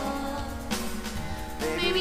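Song accompaniment of held instrumental notes in a gap between sung lines, with a singer coming back in near the end.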